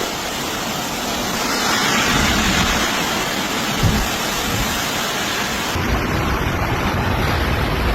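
Heavy, steady rushing of water from storm rain and flooding, with a brief low thump about four seconds in. The sound changes abruptly about three-quarters of the way through, the hiss becoming duller.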